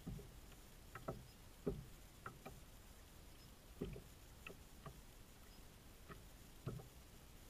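Small waves lapping against a plastic kayak hull: about a dozen light, irregular knocks and slaps, some dull and some sharper.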